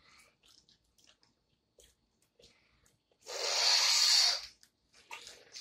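Faint clicks of boiled peanut shells being cracked open, then about three seconds in a loud, airy slurp lasting just over a second as the brine is sucked out of a shell.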